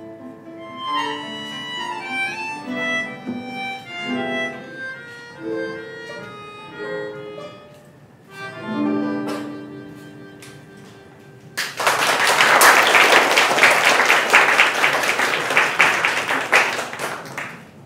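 Acoustic guitar and melodica play the closing instrumental bars of a song, ending on a held low note; about twelve seconds in, the audience breaks into loud applause, which tapers off near the end.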